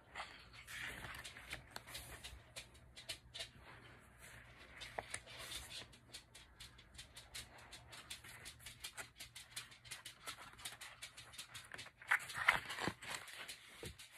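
Glossy pages of a thick photo book being turned and flicked by hand: a rapid run of small paper clicks and rustling, with a louder rustle of a page turning near the end.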